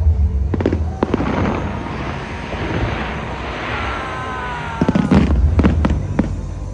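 Aerial fireworks bursting: deep booms at the start and again about five seconds in, with sharp bangs and crackling between them.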